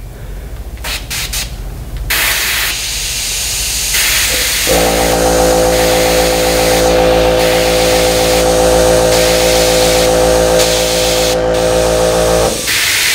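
Airbrush hissing in short puffs and then steadily as it sprays paint onto a crankbait lure. A small airbrush compressor hums steadily under the hiss from about five seconds in until just before the end.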